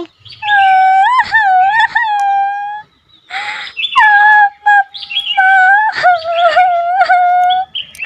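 A child's voice for a cartoon chick crying in long, drawn-out wavering wails, in pain. The wails come in two stretches with a sobbing breath between them about three seconds in.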